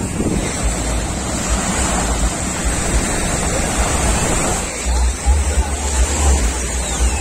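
Wind buffeting the microphone in gusts, heavier in the second half, over a steady wash of small waves on a sandy shore.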